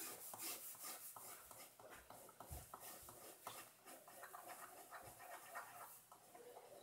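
Faint scratching of a ballpoint pen on paper, drawn in quick short strokes. There are two soft low thumps.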